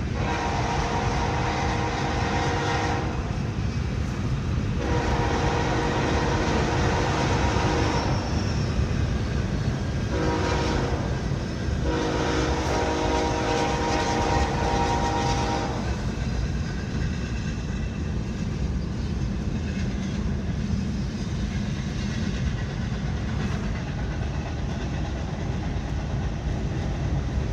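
Locomotive air horn sounding four blasts, long, long, short, long, the standard grade-crossing signal, over the steady low rumble of the car's road noise. The horn stops about sixteen seconds in, leaving only the car's rumble.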